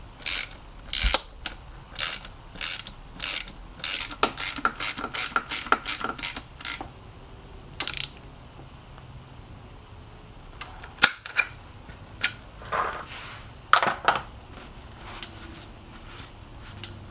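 Ratchet wrench clicking as a bike frame's suspension pivot bolt is tightened: a run of sharp clicks, about two a second, for the first seven seconds or so, then a few scattered clicks and knocks.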